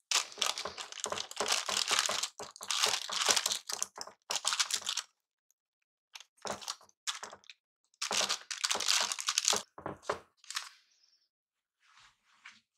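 Parchment paper crinkling and rustling, with the crunch of a sticky chocolate, peanut and puffed-rice mixture, as bare hands press and spread it into a lined baking dish. The sound comes in dense crackly bursts, with a pause a little before the middle and only faint rustles near the end.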